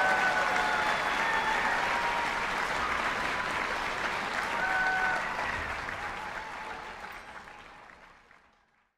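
Audience applauding, with a few short cheers over the clapping; the applause fades out over the last few seconds.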